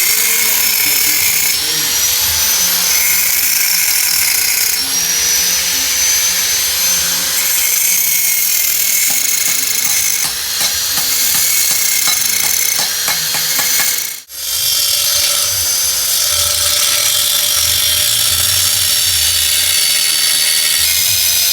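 Power tool running steadily under load with a high-pitched hiss; it stops for a moment about fourteen seconds in, then starts again.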